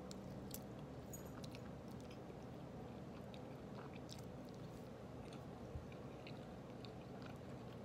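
Faint chewing of a mouthful of spaghetti, with soft scattered clicks from the mouth over a low steady room hum.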